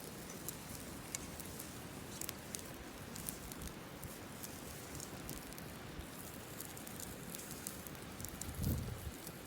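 Wood campfire crackling, with sharp irregular pops over a steady hiss. A brief low thump near the end.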